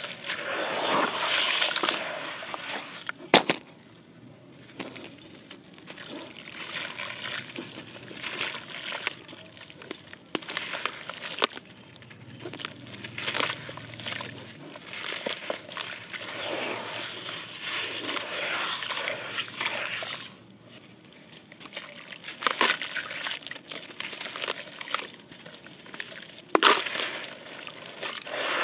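Wet sandy concrete chunks crumbled and squeezed by hand over a basin of water, grit and crumbs falling and splattering into the water in an uneven, crackling stream. A sharp crack about three seconds in as a chunk breaks.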